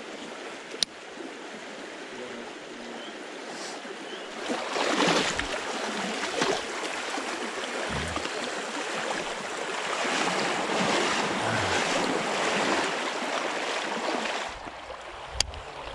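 Shallow creek water running over rocks, a steady rushing that grows louder about four seconds in and drops back near the end. There is a sharp click near the start and another near the end.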